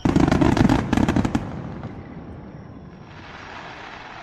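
A large aerial firework shell bursting with a loud boom, followed by a rapid run of sharp bangs and cracks for about a second and a half. A fainter hiss rises about three seconds in.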